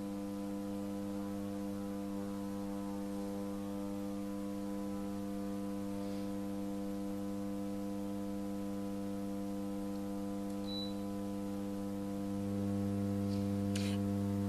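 Steady electrical mains hum, a low buzz made of a stack of even tones, growing a little louder about twelve seconds in.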